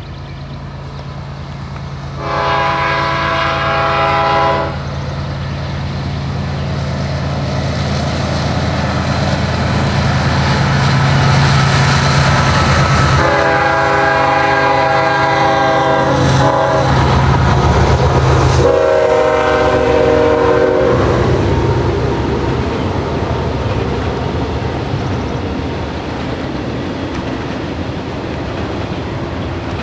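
Diesel train passing, sounding three long horn blasts, the second the longest, while the low drone of the locomotive and cars grows louder and then fades.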